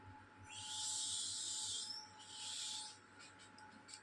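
A parrot hissing: two breathy hisses, the first long, the second shorter, after a short pause.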